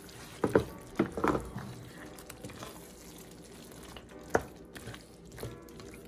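Cooking utensil knocking against a pot as curry shrimp are stirred into their sauce: a few sharp knocks, two quick pairs in the first second and a half and the loudest about four seconds in, over faint background music.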